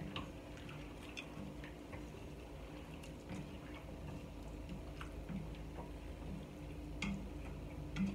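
Wooden spatula stirring vegetable soup in a stainless steel pot: faint, scattered clicks and taps against the pot, over a low steady hum.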